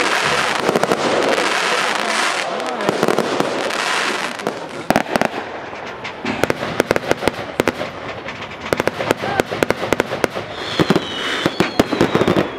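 Fireworks going off: a dense noisy rush for the first few seconds, then many sharp crackling bangs in quick succession.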